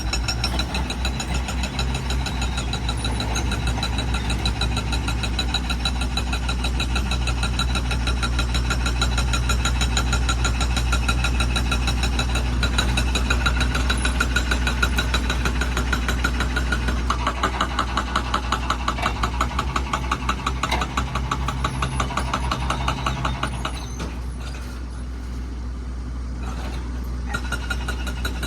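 Tractor-driven air compressor's diesel engine running, with a rapid, steady hammering typical of a pneumatic rock drill working; the sound drops back for a few seconds near the end, then picks up again.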